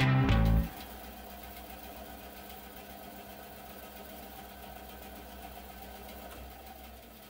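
Metabo BAS261 bandsaw's 400 W motor and blade running with no load: a quiet, steady hum. Near the end the saw is switched off and the hum begins to fade.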